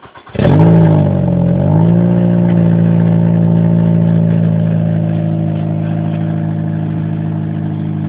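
Toyota Sienta engine starting about a third of a second in, flaring briefly and then settling into a steady idle at the exhaust. A stone is lodged in the muffler and rattles inside it, a clatter easily mistaken for a dry-clutch rattle.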